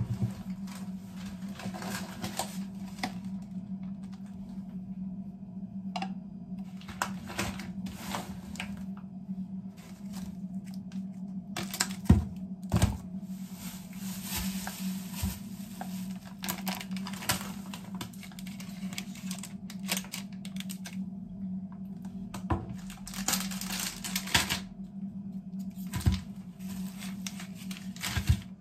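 Groceries being unpacked from a canvas tote bag onto a kitchen counter: plastic and paper packaging rustling, and packages set down with light knocks and clicks, the loudest knocks about twelve seconds in. A steady low hum runs underneath.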